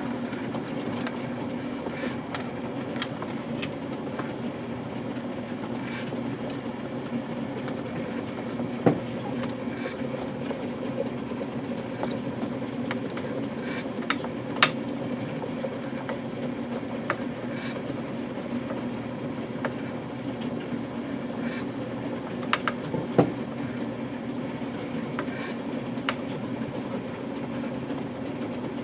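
Steady hum of O-scale toy trains running on the layout, with scattered light clicks and ticks and a few sharper clicks.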